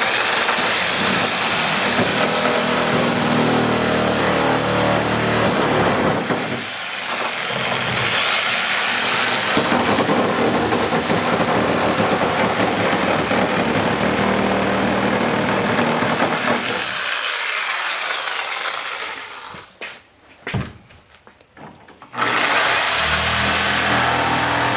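Reciprocating saw (Sawzall) running and cutting to enlarge the hood opening, with a brief stop and a couple of short spurts near the end before it runs steadily again.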